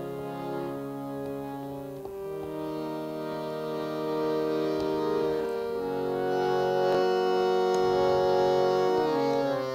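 Harmonium playing long sustained chords that change about every three seconds, growing louder toward the end.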